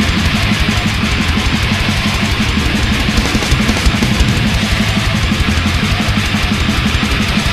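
Thrash/death metal song: distorted electric guitars over very fast, dense drumming, loud and unbroken.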